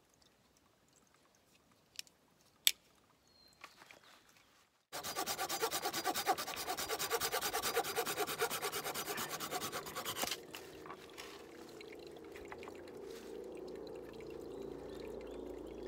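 Two sharp clicks, then from about five seconds in a Silky Pocketboy 130 folding saw cutting a thin dead branch with fast rasping strokes, quieter for the last few seconds.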